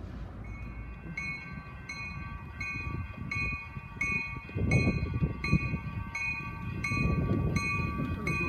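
A railway bell ringing steadily, nearly two strikes a second, as a heritage train approaches. A louder low rumble rises under it about halfway through.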